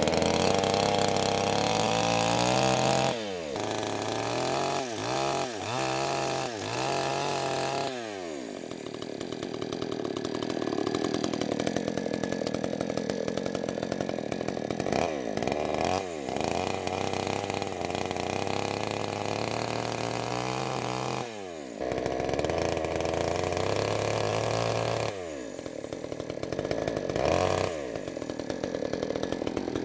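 Chainsaw running at high revs while cutting wood, the engine dropping back and revving up again several times.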